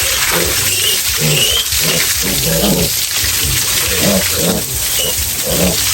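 Pigs grunting over and over in a string of short low calls, with a steady hiss of background noise.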